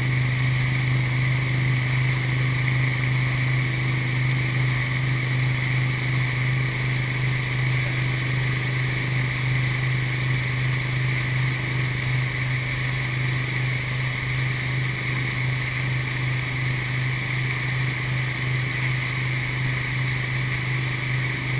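A wakesurf towboat's engine runs at a steady cruising speed as a constant low drone, with the wake's churning, rushing water mixed in.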